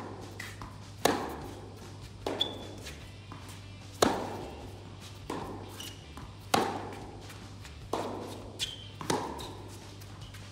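Tennis balls struck by rackets in a baseline rally on an indoor hard court, echoing in the hall. Loud racket hits come about every two and a half seconds, with quieter impacts from ball bounces and the far player's strokes between them.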